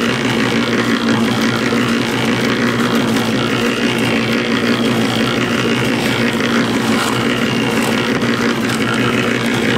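Electric cement mixer running steadily, a constant motor hum with the drum turning.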